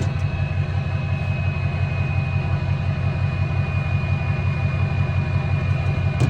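Truck engine running steadily: a low, even rumble with a thin, steady high tone over it.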